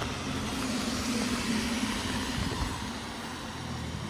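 A motor vehicle driving past, its engine hum and tyre noise swelling about a second in and fading towards the end.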